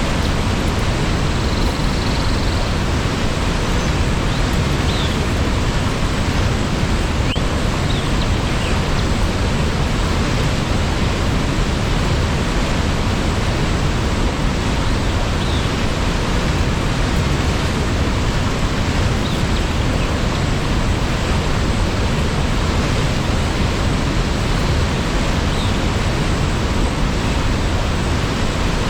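Steady, loud rush of a waterfall, an even roar of falling water with no change in level. A few faint, brief high sounds are scattered through it.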